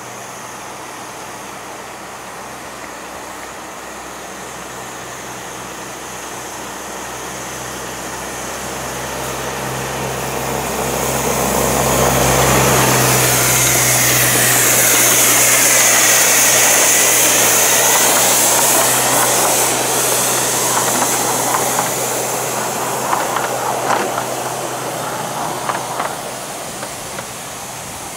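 A 7¼-inch gauge miniature steam locomotive hauling a passenger train passes close by. Its steam hiss and running noise build to a peak about halfway through, then ease off as it draws away, with a few sharp clicks near the end.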